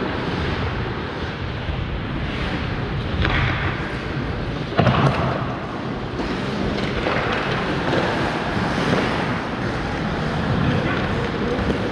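Ice hockey play in a large indoor rink: a steady noisy rush, with a sharp knock about three seconds in and a louder one about five seconds in.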